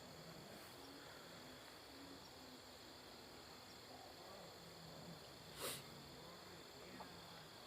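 Faint, steady chorus of night insects such as crickets, a continuous high-pitched trilling. About five and a half seconds in, one short sharp hiss-like noise cuts across it.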